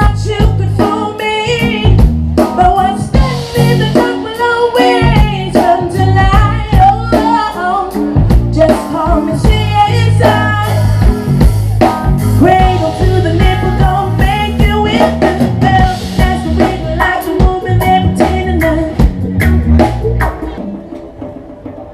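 Live band music: a woman singing lead over electric guitar, bass and a drum kit, played through a stage PA. The music fades down near the end.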